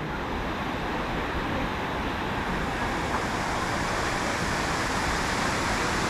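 Steady rush of water from a rocky stream and the waterfall ahead, growing slowly louder.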